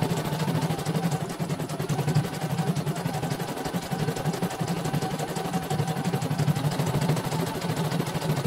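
CNY portable computerised embroidery machine stitching a design, its motor newly replaced: rapid, even needle strokes over a steady motor hum as the embroidery arm moves the hoop.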